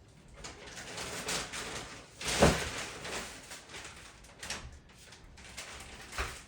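Felt-tip marker rubbed back and forth on paper while colouring, in irregular scratchy strokes, with a louder bump about two and a half seconds in.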